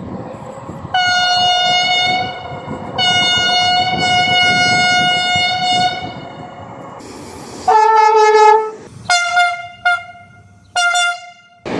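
Train horns: two long blasts on one steady note over the low rumble of a running train, then a lower horn blast, then three short toots on the first note. The sound changes abruptly between the sections.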